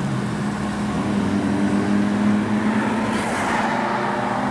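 A motor vehicle's engine on the road, a steady low hum that rises a little in pitch about a second and a half in.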